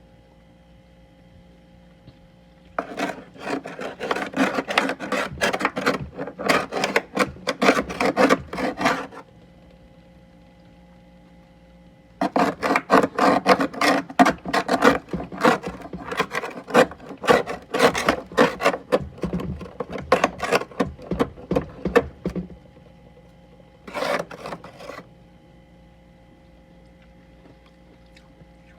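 Freezer frost being scraped in rapid rasping strokes, coming in three runs: one of several seconds, a longer one of about ten seconds, and a brief last one.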